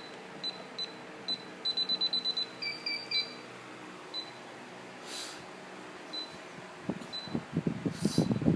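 DSC PC1555RKZ alarm keypad beeping as code keys are pressed to arm the system: a few single short beeps, a quick run of about seven, then three beeps at a different pitch. Two short hisses come later, and irregular rustling near the end.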